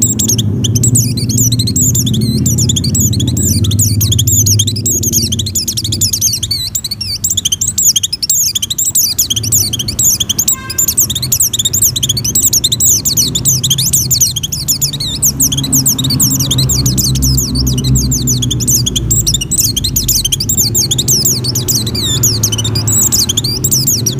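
White-eye (pleci) in breeding condition singing a long, fast, high-pitched twittering song with hardly a pause, the kind of song used to lure other white-eyes. A steady low hum runs underneath.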